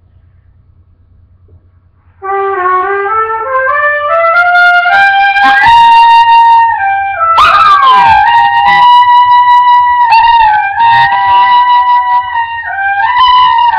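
Trumpet being practised: about two seconds in it starts a slow scale of notes stepping upward, then plays long held notes.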